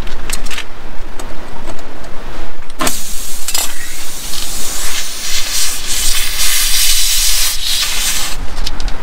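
Compressed air hissing steadily for about five seconds, starting with a sharp click, over a low rumble.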